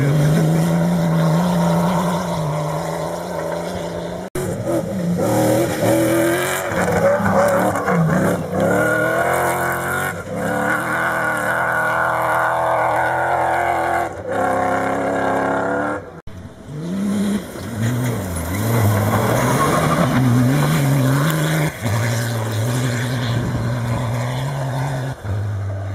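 Cross-country rally car engine revving hard, its pitch climbing and dropping back again and again as it shifts gears. The sound dips briefly about two-thirds of the way through, then more rising and falling revs follow.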